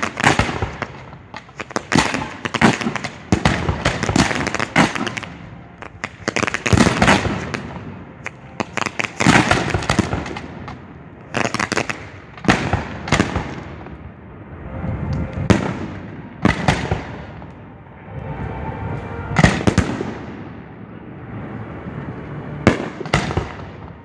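Professional display fireworks heard close to the firing site: a rapid, irregular series of loud sharp booms from mortar launches and shell bursts, coming in volleys with crackling between them.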